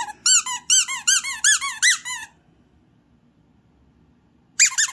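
Plush squeaky dog toy shaped like a latte cup squeezed repeatedly by hand, its squeaker giving a fast run of squeaks, about four a second, each rising and falling in pitch. The run lasts about two seconds, and another quick run starts near the end.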